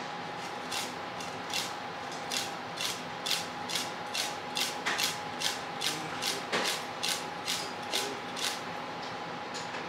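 Honekiri: a heavy knife making rapid fine cuts across a pike conger (hamo) fillet on a cutting board, slicing through the small bones. The crisp strokes come evenly, about two a second.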